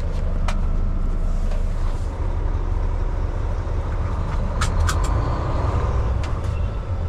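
Diesel engine of a Volvo semi truck running steadily, heard from inside the cab as the truck rolls slowly forward, a low even rumble. A few short sharp clicks cut through about halfway through.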